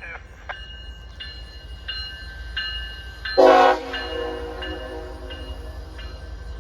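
CSX freight locomotive horn giving one short, loud blast about halfway through, over the low rumble of a train running by and regular faint clicks.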